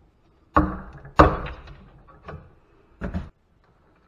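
Knocks and clunks of metal against a wooden workbench as the rusted iron valve cover is worked off an old farm water pump. Two loud knocks come in the first second and a half, then several smaller ones.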